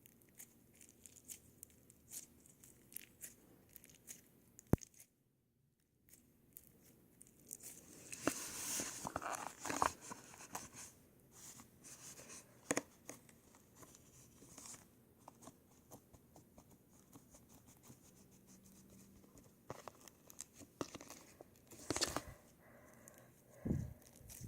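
Homemade slime with foam beads being squished and stretched by hand: scattered crackles and small pops, with a second of dead silence about five seconds in.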